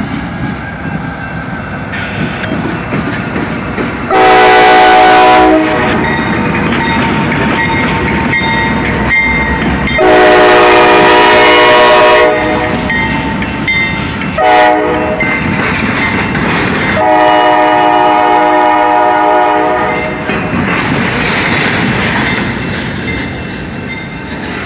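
Norfolk Southern AC44C6M diesel locomotive's air horn blowing the grade-crossing signal: two long blasts, a short one and a final long one, several tones at once. Under it runs the steady rumble of the locomotive and the double-stack intermodal train rolling by.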